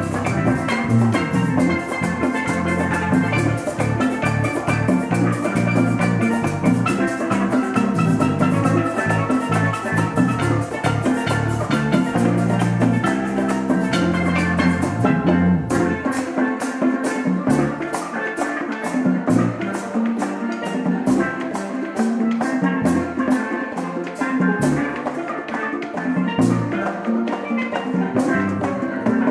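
Live church band playing upbeat worship music with a drum kit keeping a fast, steady beat over sustained pitched instruments. About halfway through the bass drops out, leaving drums and the higher instruments.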